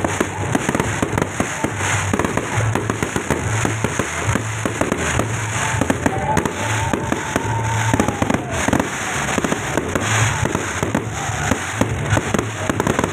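Fireworks going off in quick, irregular succession: dense popping and crackling bangs. About six seconds in, a gliding tone rises and then falls over roughly three seconds.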